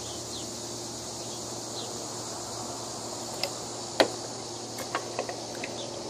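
A few light clicks and taps from handling cut-open aluminium drink cans and a caulking gun, the sharpest about four seconds in, over a steady outdoor background hiss with faint chirps.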